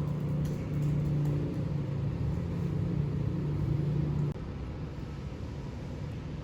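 Steady low rumble with a low hum that drops away about four seconds in.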